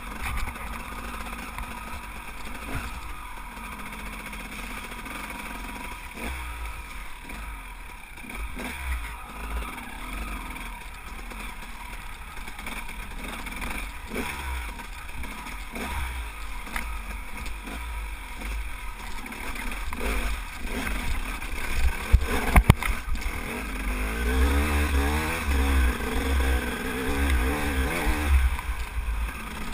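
Enduro dirt bike's engine running and revving as it rides a rough, rocky trail, with heavy wind rumble on the microphone. A couple of sharp knocks come about three-quarters of the way in, and the engine rises and falls in pitch repeatedly near the end.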